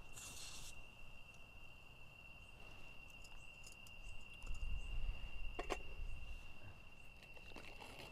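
A cricket trilling steadily on one high, unbroken note. Over it, a short hiss at the start and a sharp click a little past halfway, handling noise from the campsite.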